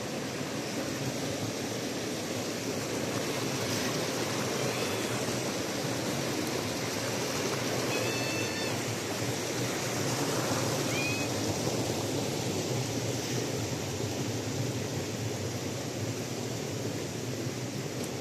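Steady rushing noise outdoors, with a couple of brief high chirps about eight and eleven seconds in.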